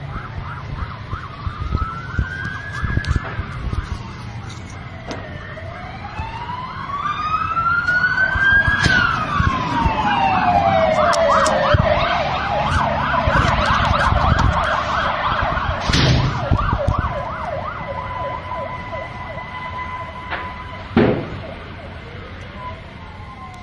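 Several emergency sirens sounding at once, with slow wails rising and falling in pitch and a fast warbling siren in the middle. Later a steady held siren tone takes over and drops away near the end. Two sharp bangs cut through, about 16 and 21 seconds in.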